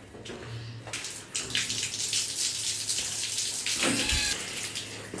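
Handheld shower spraying water onto a man's head and splashing onto a tiled shower floor, a steady hiss that starts about a second in.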